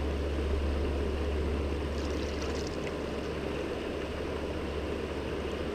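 Steady rush of a river's current flowing over a rocky bed, with a low rumble underneath.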